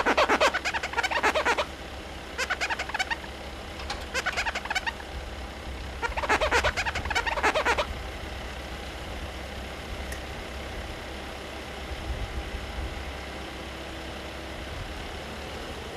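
Truck-mounted aerial work platform with its engine running steadily while the boom moves. Four short bursts of rapid clicking come in the first half.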